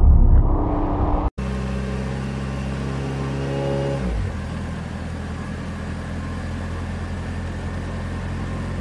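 A loud low rumble cuts off abruptly a little over a second in. A pickup truck engine then runs steadily, its note settling to a slightly lower, even hum about four seconds in.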